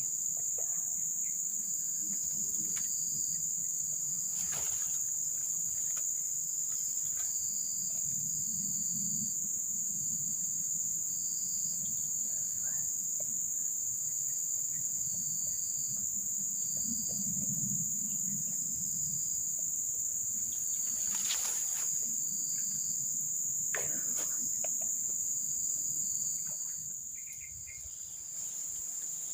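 Insects chirring in a steady high-pitched drone, with a second insect call pulsing on and off just below it. A few faint knocks are heard along with them.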